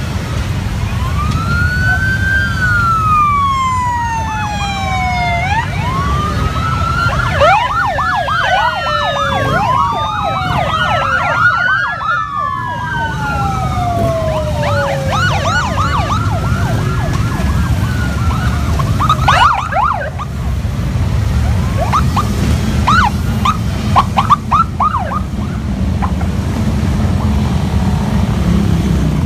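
Police sirens on a passing motorcycle escort, several at once: slow rising-and-falling wails overlapping with fast yelps for the first half, then short bursts of quick chirps. The motorcycles' engines rumble steadily underneath.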